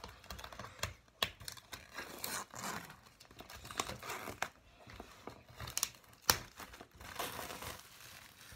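A DVD box set's packaging being unwrapped and opened by hand: irregular rustling with scattered sharp clicks and taps, the sharpest click about six seconds in.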